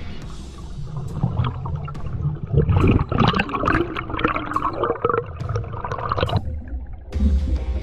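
Muffled underwater water noise picked up by an action camera below the surface: irregular gurgling and sloshing over a steady low rumble.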